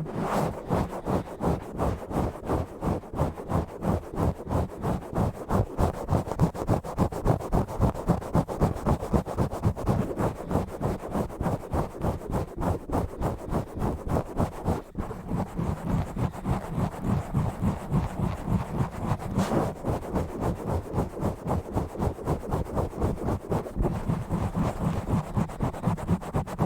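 Fast, rhythmic scratching and rubbing directly on an uncovered microphone, about three to four strokes a second, heavy on the low end.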